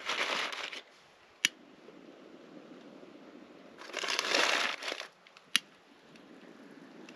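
Campfire being lit with a long lighter held into the kindling: two rushes of hissing noise, each about a second long, each followed a moment later by one sharp click.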